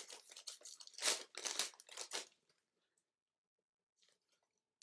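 Trading card box packaging being crinkled and crunched as it is handled, stopping about two seconds in.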